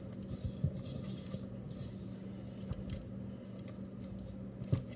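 Hands rolling soft dough into balls between the palms: soft, intermittent rubbing and squishing, over a steady low hum, with a light knock near the end.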